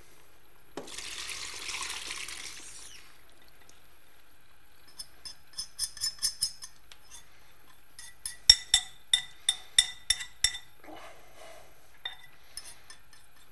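Curry sauce with chopped onion slopping out of a bowl into a hot pot of cooked mussels, with a hiss lasting about two seconds. Then a spoon scraping the bowl and knocking against it, a run of sharp ringing clinks about eight seconds in.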